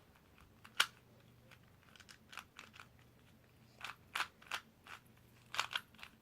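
A 2x2 plastic speed cube being turned by hand: a string of sharp, irregular plastic clicks and clacks as the layers snap round, bunching into quick runs in the second half.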